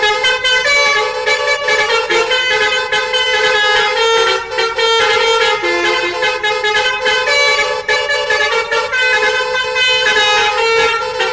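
Two bus horns honking together: a plain horn note held with short breaks while a multi-tone telolet horn plays higher notes that change in steps like a tune. Loud and continuous.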